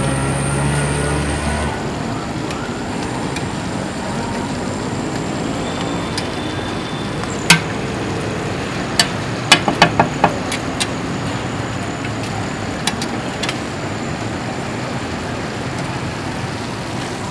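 Liver frying on a large flat tawa, a steady sizzle mixed with street traffic noise. A vehicle engine hums at the start, and sharp metal clinks from the spatula on the pan and plate come once near 7.5 s and then in a quick cluster a couple of seconds later.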